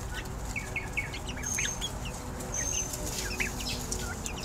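A group of young chicks, about five weeks old, peeping in short, scattered high chirps.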